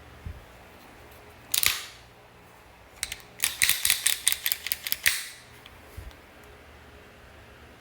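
Metallic clicks and clacks of a Beretta M9 pistol being handled: one sharp clack a little after one and a half seconds, then a quick run of about a dozen clicks lasting under two seconds.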